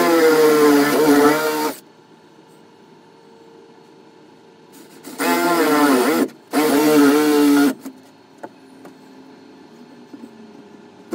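Cordless drill with a long bit boring up into wooden ceiling boards, running in three bursts of one to two seconds each. The motor's pitch wavers as the bit bites.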